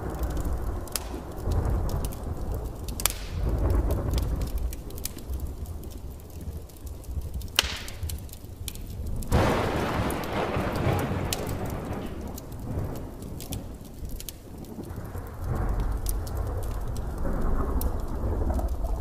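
Thunderstorm: steady rain with rolling rumbles of thunder, a sharp crack about seven and a half seconds in and a loud thunderclap about nine seconds in that rolls away over several seconds.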